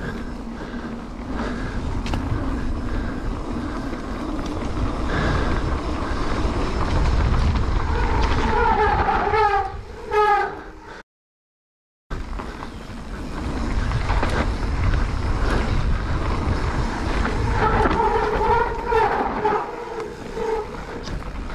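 Mountain bike rolling fast down a dirt trail, with wind, tyre and rattle noise throughout. Twice the disc brakes squeal with a wavering howl, first for about two seconds near the middle and again a few seconds before the end.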